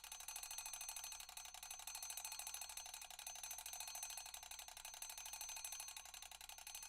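Classic mechanical table alarm clock ringing: its hammer strikes the bell in a fast, continuous rattle over a steady metallic ring.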